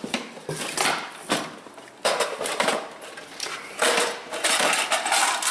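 Metal hand tools clinking and rattling in a steel toolbox drawer as they are rummaged through, in irregular bursts of clatter.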